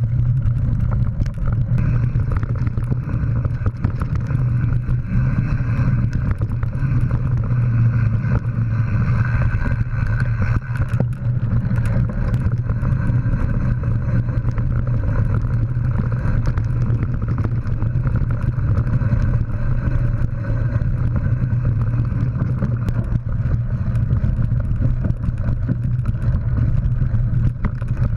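Mountain bike riding fast over a forest dirt trail, picked up by a bike-mounted GoPro: a steady, loud low rumble of tyres and frame vibration with frequent small clatters and rattles.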